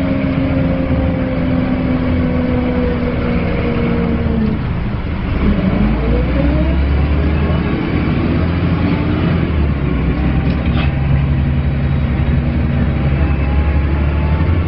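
Dennis Lance bus with an Alexander Strider body running and groaning: its whining drivetrain tones fall as it slows over the first four seconds or so. About five seconds in, a rising whine comes in as it pulls away, and it then runs on with a steady low rumble.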